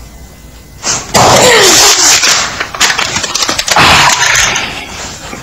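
A hand slamming down hard on plastic cups, crushing them with loud cracks and crunches, a few times over about three seconds.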